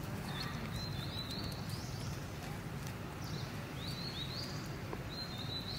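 Outdoor ambience: a steady low rumble, with a high, thin call coming three times, each sweeping upward and then holding as a whistle.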